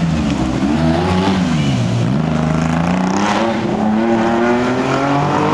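Historic rally car engine revving hard through the gears: the pitch rises and drops a few times, falls low about two seconds in, then climbs steadily as the car accelerates away.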